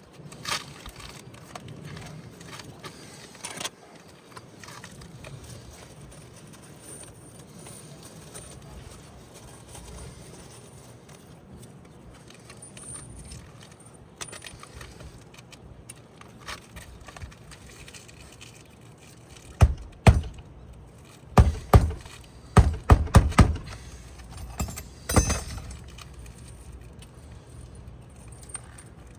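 Hammer striking roofing nails while fastening a replacement shingle: a quiet stretch, then about nine sharp knocks in small groups of two to four over some six seconds, past the middle.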